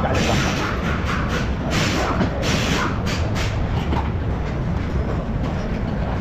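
Steady low rumble of workshop background noise, with scattered metal clicks and clanks as a strut's coil spring, mount and bearing are handled in a spring compressor.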